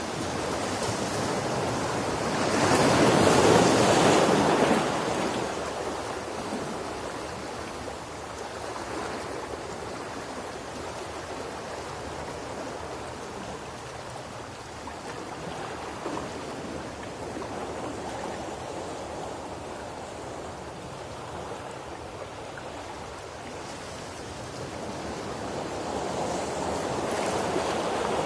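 Ocean surf washing on a shore: a steady hiss of breaking waves, with one wave swelling loudest about three to four seconds in and another building near the end.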